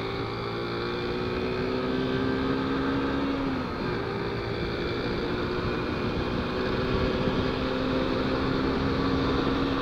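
Small motorcycle's engine running under way, its note rising slowly with a brief dip about four seconds in, under steady wind rush from riding.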